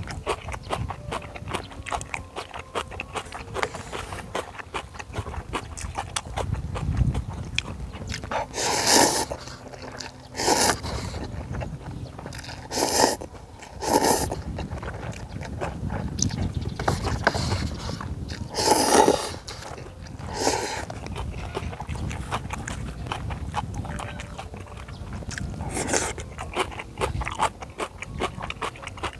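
A person eating spicy instant ramen and kimchi close to the microphone: steady chewing, broken by several loud slurps of noodles.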